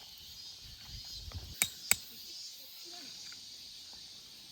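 Two sharp clicks about a third of a second apart, over a steady high-pitched hiss.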